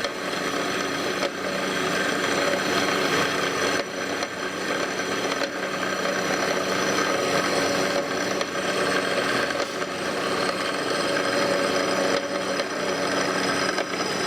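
Bandsaw with a coarse 4-teeth-per-inch metal-cutting blade slowly cutting 3/8-inch-thick plate: a steady rasping cut over the saw's running hum, with a few brief dips in the first half.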